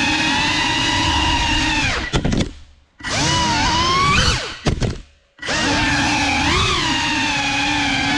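GEPRC Cinelog 35 FPV cinewhoop's motors and propellers whining, the pitch shifting with the throttle. Twice, about two seconds in and again about four and a half seconds in, the throttle is cut and the whine falls away almost to silence with a few sharp clicks, then comes straight back.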